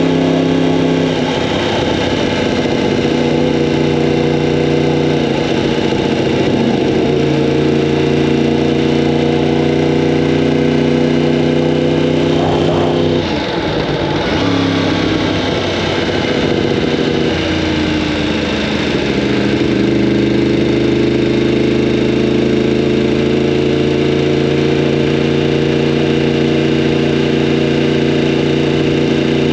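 2015 Yamaha R1M crossplane inline-four engine breathing through an Akrapovic exhaust, running at fairly steady revs with small rises and falls. The revs drop briefly and climb back about halfway through.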